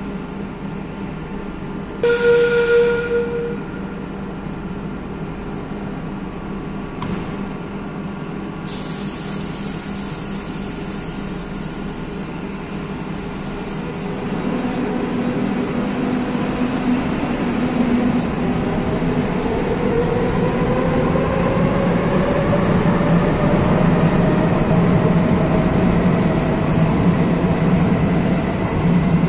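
Madrid Metro train at the platform, humming steadily, with a short warning tone about two seconds in as the doors are about to close. A few seconds later comes a sharp air hiss that fades away, the brakes releasing. From about halfway through, the traction motors whine, rising in pitch and getting louder as the train pulls out of the station.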